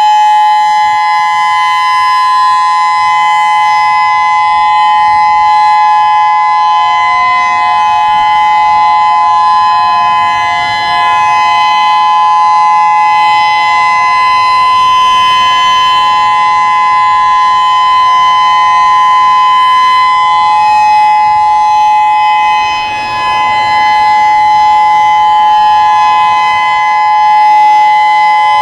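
Whelen WPS-3016 electronic outdoor warning siren sounding its steady test alert tone, two close pitches held together. The loudness dips briefly twice as the rotating siren head sweeps.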